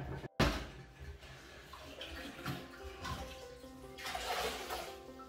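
Water sloshing and dripping as a sponge mops out the last of the water in a toilet tank and is squeezed into a plastic bucket, in irregular soft swishes. Faint background music plays under it.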